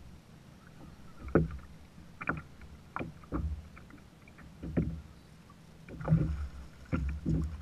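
Small waves slapping against the plastic hull of a Hobie kayak: irregular hollow knocks and thuds, roughly one a second, over the soft wash of open water.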